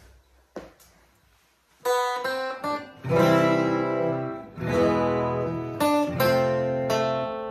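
Steel-string dreadnought acoustic guitar being played: after about two seconds of near quiet, a tune starts with picked single notes mixed with strummed chords.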